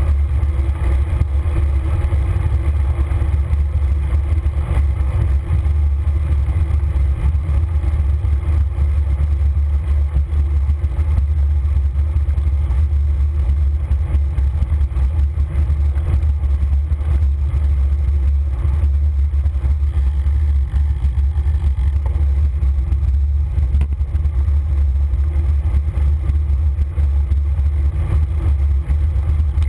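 Steady, loud low rumble of wind buffeting the microphone of a camera riding on a moving bicycle, with faint road and tyre noise under it.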